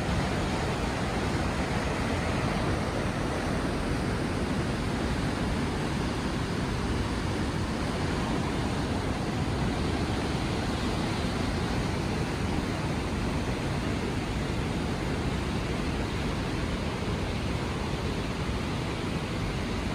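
The Upper Falls of the Yellowstone River: whitewater rushing over the brink of the falls in a steady, unbroken roar.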